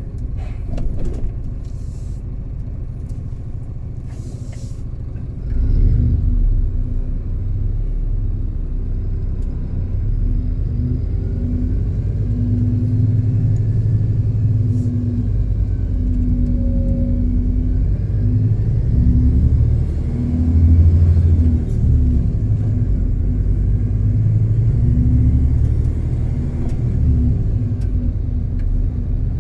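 A vehicle's engine running at low road speed with a steady low rumble and a wavering hum, getting louder about six seconds in as it pulls ahead. A few faint clicks come in the first five seconds.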